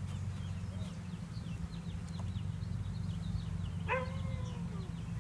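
Steady low hum of a honeybee swarm, with faint rapid bird chirps over it and, about four seconds in, one short dog yelp that falls in pitch.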